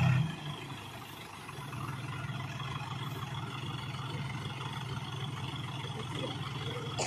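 Tractor diesel engine running steadily. It drops off sharply just at the start, then settles into an even, lower-pitched running from about a second and a half in.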